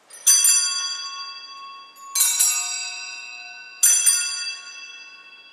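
Altar bells rung three times at the elevation of the host during the consecration. Each ring is a quick shake of several small bells that then dies away slowly.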